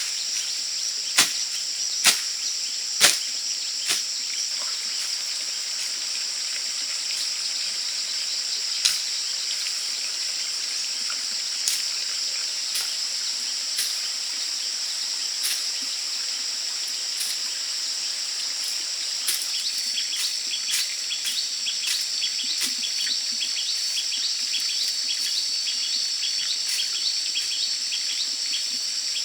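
Steady high-pitched chorus of jungle insects, with a few sharp knocks in the first seconds and a rapid clicking trill joining about two-thirds of the way through.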